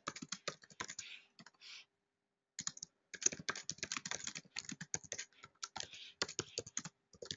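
Typing on a computer keyboard in quick runs of keystrokes, pausing briefly about two seconds in and again near the end.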